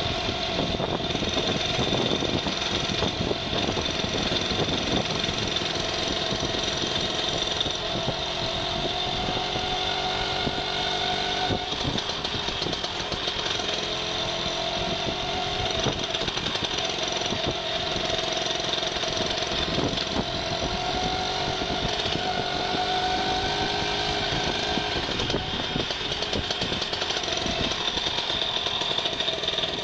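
A motor vehicle engine running steadily at low road speed, its pitch drifting slightly up and down with the throttle, over wind and road noise.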